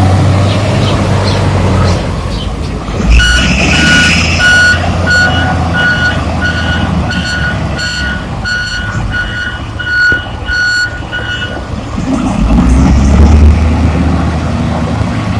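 Backhoe loader's reversing alarm beeping about twice a second over its diesel engine running. The beeping starts a few seconds in and stops a few seconds before the end, and the engine grows louder near the end.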